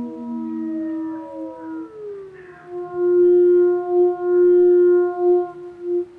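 Theremin music. A held note slides down in pitch about a second in, then settles on a lower note that swells and fades several times, over a steady ringing drone.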